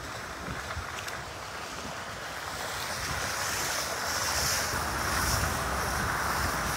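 Steady rushing of a car's tyres through standing floodwater, mixed with rain and wind. It grows louder about three seconds in.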